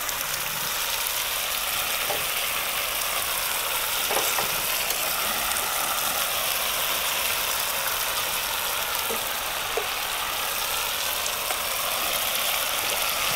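Samosas deep-frying in hot oil in a pan: a steady sizzle, with a few faint clicks.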